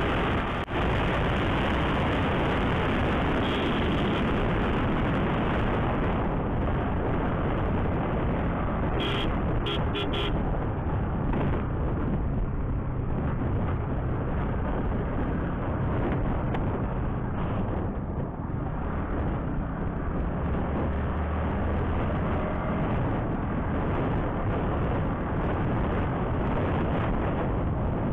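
Steady rush of wind over a helmet-mounted microphone on a motorcycle riding at road speed, with the engine running underneath. About nine to ten seconds in, a horn gives a few short beeps.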